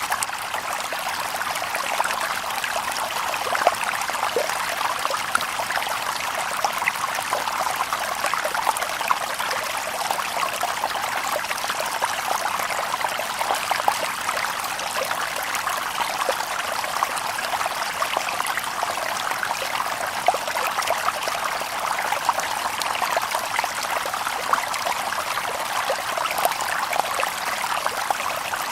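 Shallow stream babbling and trickling over stones, a steady splashing with small burbles and no birdsong.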